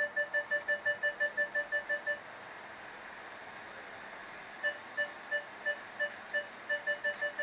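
Kia minivan's parking-sensor warning beeping as the van creeps up on an obstacle: quick short beeps about six a second that stop about two seconds in, then start again a couple of seconds later at about three a second and quicken near the end as the obstacle gets closer.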